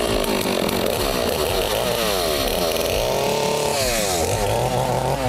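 Two-stroke gasoline chainsaw running unloaded, its engine speed falling and rising several times.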